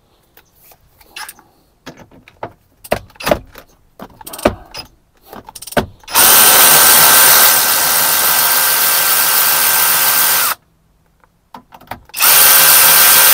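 Cordless electric ratchet undoing a seat-mounting nut. First come a few clicks and knocks as the socket is fitted. Then the motor gives a steady whine for about four seconds, stops, and runs again briefly near the end.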